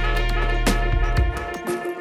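Instrumental background music with drums and a bass line; the bass fades out about a second and a half in.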